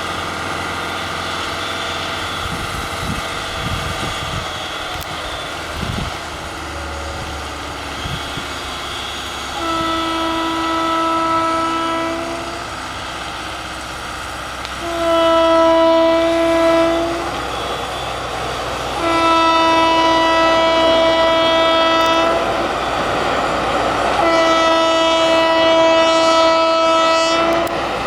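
WAP-4 electric locomotive's horn sounding four long blasts, each two to three seconds, the first about ten seconds in, over the steady noise of the passing train.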